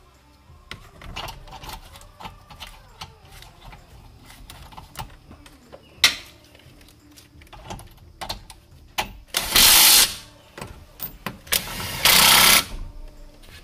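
Cordless impact driver hammering in two bursts, the first about a second long and the second about half a second, as it drives bolts into the plastic splash shield under the engine. Light clicks and rattles of handled bolts and tools come between the bursts, with one sharp click partway through.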